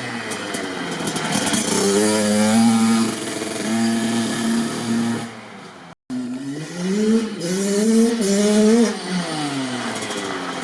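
Kawasaki KX65's single-cylinder two-stroke engine revving up and back down: the pitch climbs about two seconds in, holds, and falls away. A sudden cut to silence comes about six seconds in, then the engine climbs through the revs again and winds down near the end.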